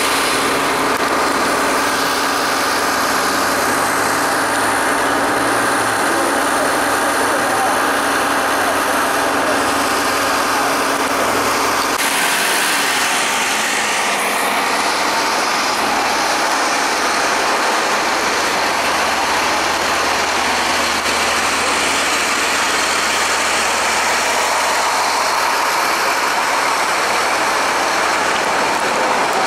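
City transit buses idling at the curb, a steady engine rumble under dense street noise, with people talking around them. The sound changes abruptly about twelve seconds in.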